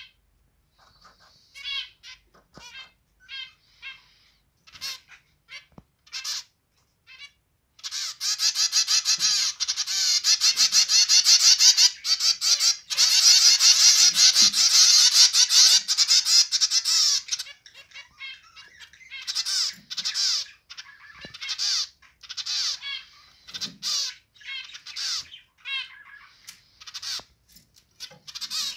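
Zebra finches calling and singing: short separate calls at first, then from about eight seconds in a dense, unbroken run of song and chatter for roughly ten seconds, after which the separate calls return.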